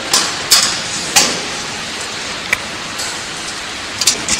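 Sharp, irregular metallic knocks and clanks from a sheet-metal bucket-elevator side panel as it is lifted and fitted against the frame, about five to six in all, over steady background noise.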